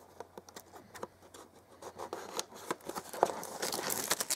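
Plastic shrink-wrap being peeled off a cardboard box: scattered small clicks and scratches, then crinkling that grows louder over the last couple of seconds.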